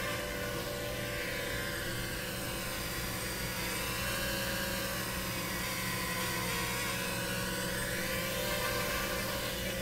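Racing quadcopter's brushless motors and propellers whining as it flies close by, the pitch sweeping up and down again and again as the throttle changes.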